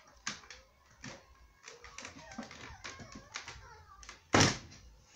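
Scattered knocks and taps with one loud thump about four seconds in: a person climbing up through a wooden-framed window, hands and body bumping the frame.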